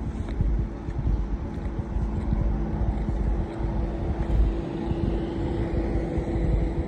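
Wind rumbling and buffeting on the microphone, with a steady hum underneath that is louder in the second half.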